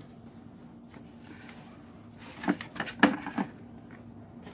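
A few sharp knocks and clicks, the loudest about three seconds in: small toy figures being handled and set down on a hard surface. A faint steady hum sits underneath.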